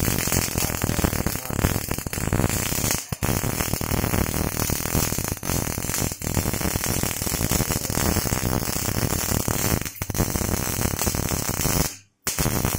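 MIG welding arc crackling steadily, with short breaks about 3, 6 and 10 seconds in where the arc stops briefly, then cutting off about 12 seconds in.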